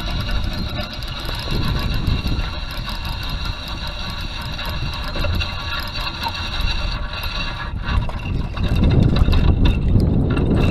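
Wind buffeting the microphone as a low rumble, stronger for the last couple of seconds, over a steady high-pitched whir.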